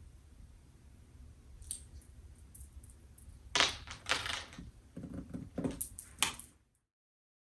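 Handling noises: a few light clicks, then a run of louder clattering and rustling over a low hum, cutting off abruptly near the end.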